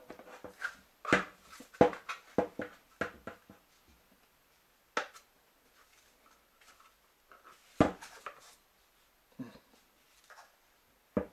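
Plastic clicks and knocks from a baby-stroller wheel's hub parts being pressed and snapped into place by hand. There is a quick cluster in the first few seconds, then single knocks every couple of seconds.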